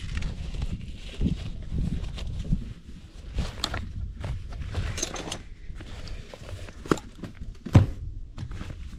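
Someone moving about and handling camp cooking gear: scattered footsteps, clicks and knocks over a low wind rumble, with one louder knock near the end.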